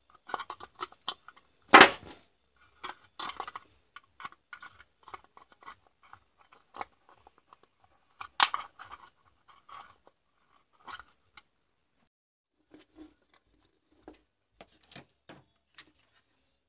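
Side-cutting pliers nipping off plastic inside a cordless drill battery pack case: a run of small clicks and cracks, with a loud snap about two seconds in and another about eight seconds in. The clicks thin out to a few faint ones near the end.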